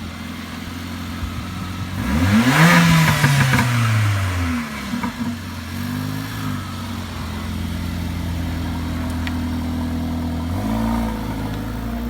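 Car engine idling, revved once about two seconds in, the revs falling back over the next two seconds. A shorter blip of the throttle follows near the end.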